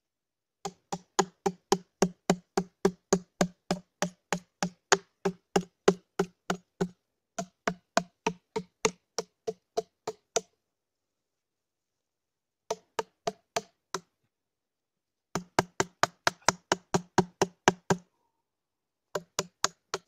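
Axe blade chopping notches into a spruce log, cut so the log catches more easily. The strikes are quick and light, about three or four a second, each with a short knocking ring, in several runs broken by short pauses.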